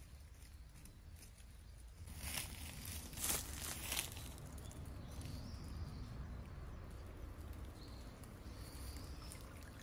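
Rustling and scraping about two to four seconds in, as a rope is hauled in to lift a submerged crab trap to the bank, over a low steady rumble.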